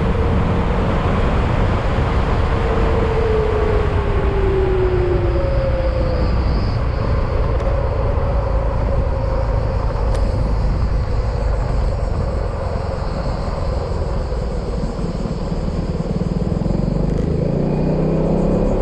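Yamaha XMAX maxi-scooter on the move, with heavy wind and road rumble. The engine note falls as the scooter eases off a couple of seconds in, and rises again near the end as it picks up speed.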